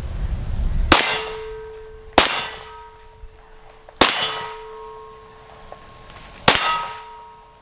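Four shots from a Glock pistol in a Roni carbine conversion kit, fired at an uneven pace, each followed by a clear metallic ring that fades over about two seconds, the sound of a steel target being hit. A low rumble runs before the first shot.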